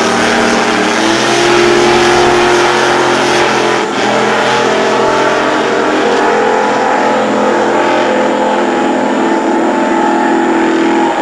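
Racing powerboat engines running at high speed: a loud, steady engine drone whose pitch drifts slowly as the boats run past.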